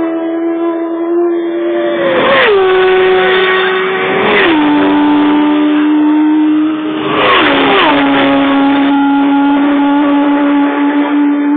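Racing motorcycles passing at full speed on a road course, one after another, each arriving as a sudden loud surge whose engine note drops sharply in pitch as it goes by. There are four passes: one about two seconds in, another about four and a half seconds in, and two close together around seven and a half seconds in. A high engine note carries on between them.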